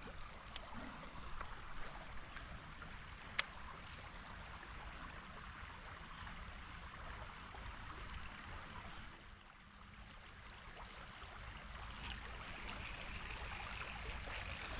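Creek water running steadily, with one sharp click about three seconds in.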